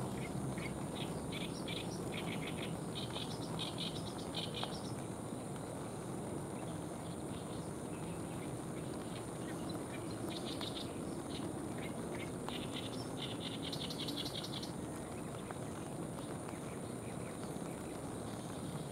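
A small songbird singing in two bouts of rapid high chirping phrases, over a steady background hiss.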